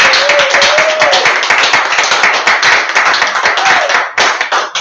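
A small group of people applauding with dense hand clapping that thins out near the end.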